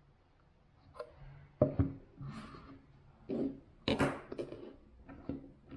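Hands handling an Apple TV 4K streaming box and its remote and setting them down on a cutting mat: a series of light knocks and clicks with short rustles, the loudest about a second and a half in and again about four seconds in.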